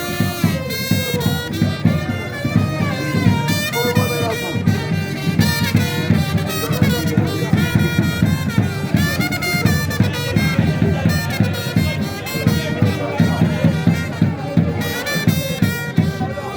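Brass band music: horns playing a moving melody over busy drumming.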